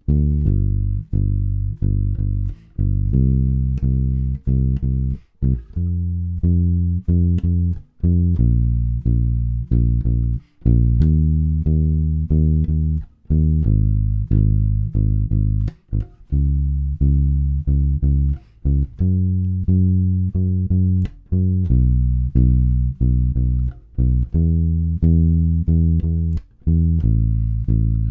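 Unaccompanied electric bass playing a short, repeated Motown-style rhythm figure of plucked notes, shifting to a new pitch every couple of seconds as it moves around the cycle of fourths.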